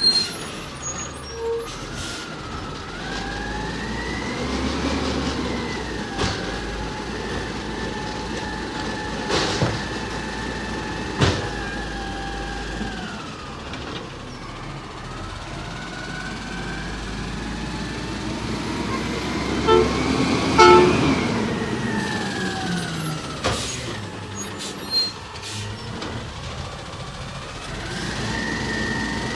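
A Freightliner Condor garbage truck with an Amrep body working at the curb. Its engine runs with a whine that climbs over a few seconds, holds and then drops away, twice, alongside sharp knocks and clanks, the loudest about twenty seconds in.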